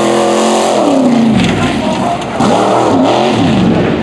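Ford Bronco tuff truck's engine revving hard on a competition run, its pitch rising and falling about four times in quick succession under sharp on-off throttle.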